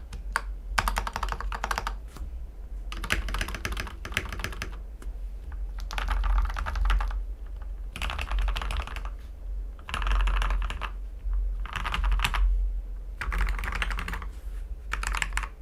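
Typing on a mechanical keyboard with lubed and filmed Gateron Ink V2 Black linear switches, in a CIY X77 board with an aluminium plate, tape mod and PE foam mod. The keystrokes come in quick runs about a second long, separated by short pauses, over a steady low hum.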